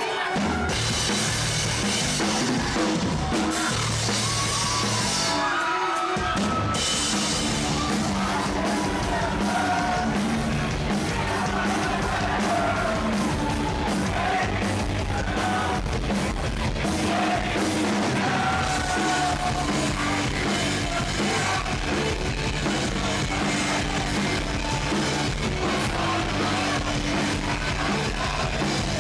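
A rock band playing loud and live, with electric guitars, bass, drum kit and shouted and sung vocals.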